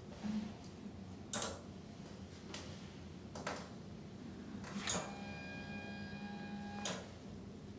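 Hands moving over skin and clothing during a manual therapy massage: five brief rustling scuffs, with a steady hum-like tone for about two seconds near the end.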